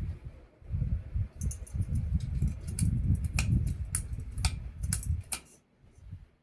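Ceiling fan running on high speed with only two of its four blades left, so it is unbalanced. Its air draft rumbles on the microphone in uneven gusts, with a run of sharp clicks and ticks through the middle.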